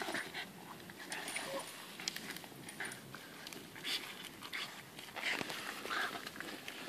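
A French bulldog puppy and a Staffordshire bull terrier puppy panting and snuffling as they play-wrestle, with irregular short scuffs and clicks of paws on the gravelly dirt.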